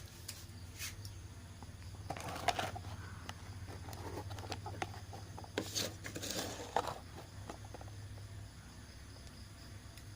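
Refrigerator compressor humming steadily, with clicks and rustles of handling from about two to seven seconds in.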